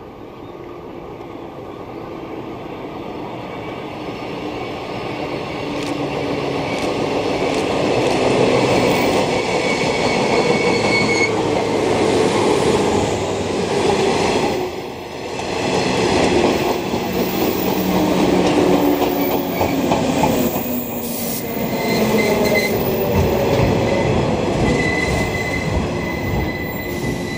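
JR West 113 series electric train, two sets coupled, approaching and running past close by: a rumble of wheels and motors that swells over the first several seconds, dips briefly midway, then stays loud. A thin high squeal rides over the rumble in two stretches.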